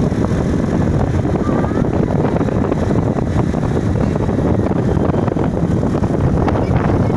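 Steady, loud low rumbling noise with no breaks.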